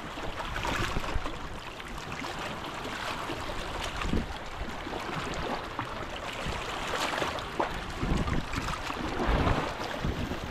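Sea waves washing, with wind buffeting the microphone and a few dull thumps about four seconds in and again near the end.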